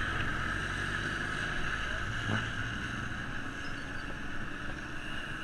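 Steady road noise from riding a bicycle on a wet road: wind on the microphone and the hiss of tyres on wet asphalt, with motor traffic alongside. A light knock about two seconds in.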